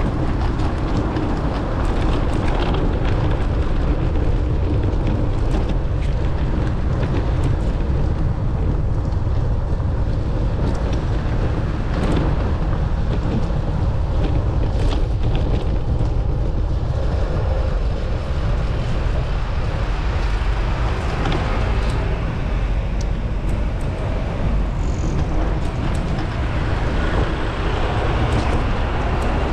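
Street traffic, cars and a bus passing, under a steady low wind rumble on the microphone, with scattered light clicks and knocks.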